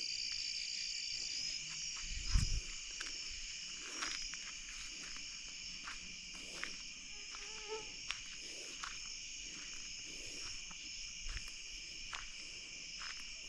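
Night chorus of crickets and other insects, a steady high trilling, with scattered small clicks and a low thump about two seconds in.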